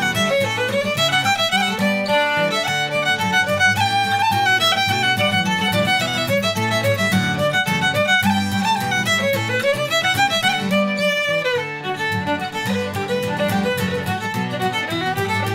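Shetland fiddle tune played on the fiddle in quick runs of notes, with an acoustic guitar strumming the rhythm underneath.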